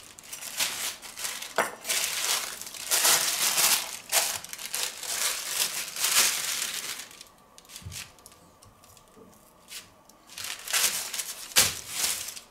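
Butcher's wrapping paper crinkling and rustling as it is unfolded by hand, in a busy run of rustles. After a quiet pause, there are a few more crinkles near the end.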